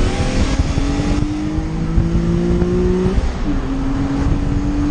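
Car engine under hard acceleration, heard from inside the car: its pitch climbs steadily, drops with a quick upshift about three seconds in, then climbs again.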